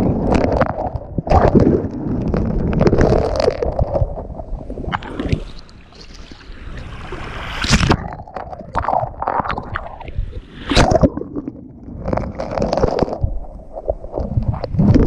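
Ocean waves breaking and washing on a beach, swelling and ebbing in several surges.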